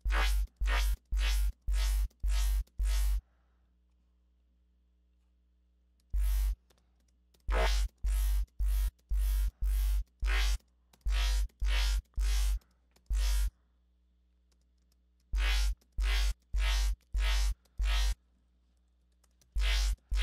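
Dubstep bass patch in the Xfer Serum software synth, played as short repeated stabs about two a second, in runs broken by pauses. Each note carries a heavy sub-bass under a bright, distorted top. The sound is run through Diode 2 distortion with a band-pass filter swept by an LFO.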